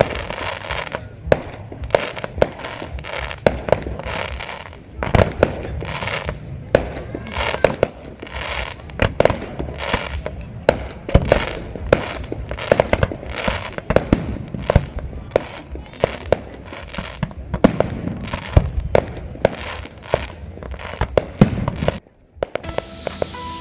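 A fireworks display: a dense run of sharp bangs and crackling shell bursts, several a second, that stops abruptly near the end.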